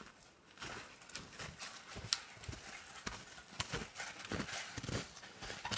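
Footsteps crunching in snow, an uneven run of steps coming closer.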